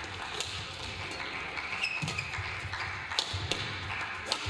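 Badminton rally: several sharp racket strikes on the shuttlecock, with short shoe squeaks on the court mat in between.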